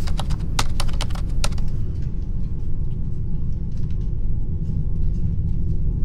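Typing sound effect: a quick run of key clicks, crisp over the first second and a half and then fainter and sparser, over a steady low rumbling drone.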